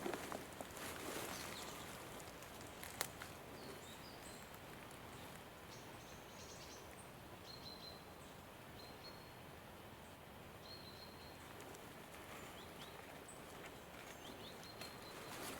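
Quiet forest ambience with short, high bird chirps scattered through it. Footsteps rustle on the forest floor at the start, with a single sharp snap about three seconds in.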